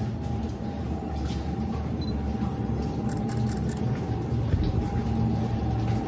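Running water of an underground cave stream, a steady low rushing rumble echoing in the rock passage, with a faint steady hum above it.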